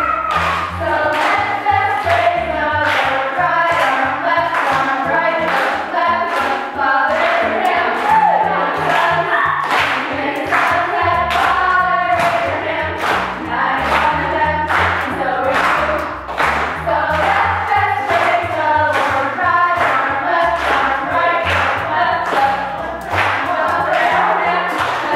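Music: a choir of voices singing over a steady drum beat and a bass line.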